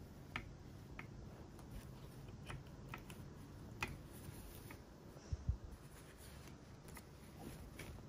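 Faint scattered light clicks and rustling, with a couple of soft low thumps about five seconds in: a kitten pawing and tugging at clothes hanging on a plastic-and-metal drying rack.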